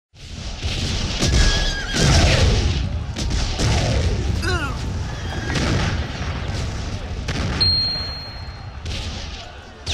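Rumbling booms and dense noise, with several shouts or cries over them that slide down in pitch during the first half.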